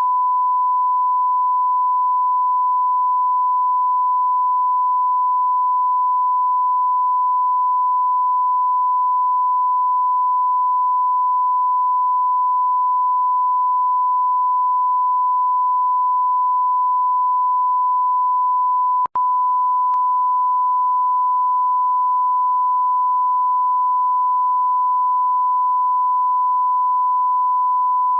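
Continuous censor bleep: a single steady pure tone, held unchanged, broken about two-thirds of the way through by a brief click and momentary dropout.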